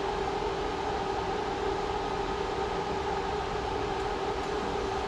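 Steady machine drone: an even hiss with a constant hum tone, unchanging throughout.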